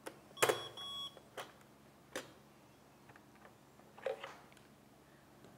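Nemonic thermal label printer giving one short electronic beep about half a second in, right after a sharp click. A few plastic clicks and knocks follow as the printer's lid and cartridge bay are handled.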